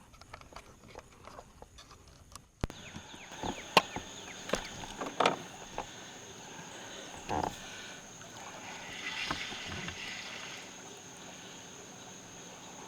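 Scattered knocks and clicks of fishing gear being handled in a boat, over a steady high insect buzz that comes in suddenly about two and a half seconds in.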